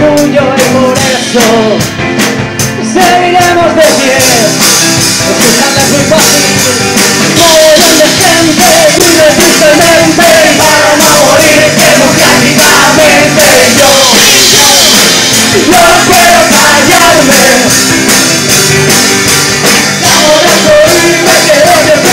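Live rock band playing: drums keeping a steady beat under guitar, with a voice singing the melody.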